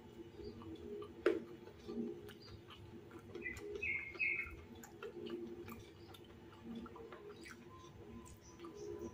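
Close-up eating sounds: chewing of crispy fried tofu meatball and rice, with small wet mouth clicks and a sharp click about a second in. A bird chirps a few times in the background around the middle.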